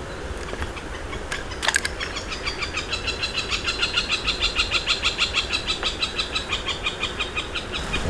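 A bird calling a long, fast run of repeated notes, about seven a second, that sounds like laughter, starting about two seconds in.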